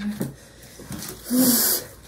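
A person hissing a breath with a little voice in it, about a second and a half in, after a short grunt near the start: a reaction to a mouth burning from very hot sauce.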